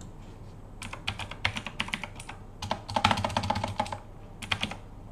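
Typing on a computer keyboard: short irregular runs of key clicks starting about a second in, quickest and densest around three seconds in.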